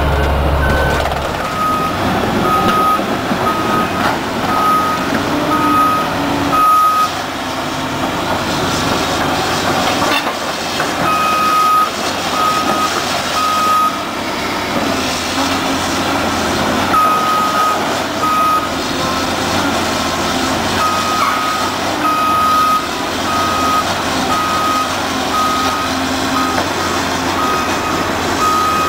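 Heavy earthmoving machinery running, with its backup alarm beeping in runs of evenly spaced beeps that stop and start again twice.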